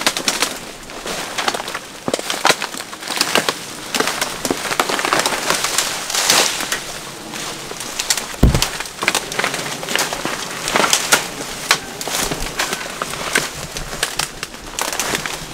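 Dry branches, twigs and leaves crackling and rustling as a person pushes through thick undergrowth, with many small snaps of twigs breaking. A single dull thump comes about eight and a half seconds in.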